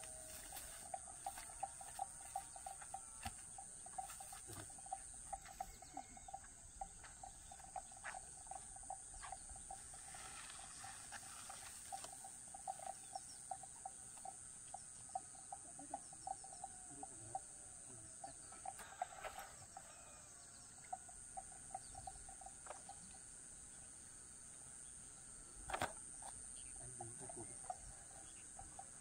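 Night-time insect chorus: a steady high-pitched buzz with a lower, rapidly pulsing trill, and a few faint clicks.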